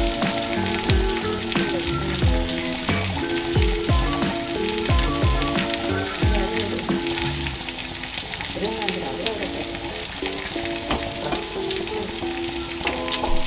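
A masala-coated sole fillet sizzling steadily as it shallow-fries in hot oil in a nonstick pan. Light background music with a melody and bass plays over the sizzle.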